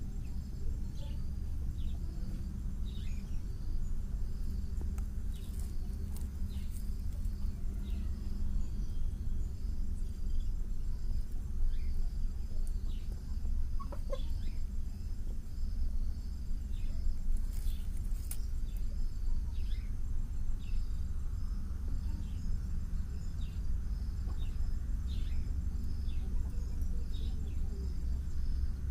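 Hens clucking at a straw nest, with many short, falling high chirps throughout and a steady low rumble underneath.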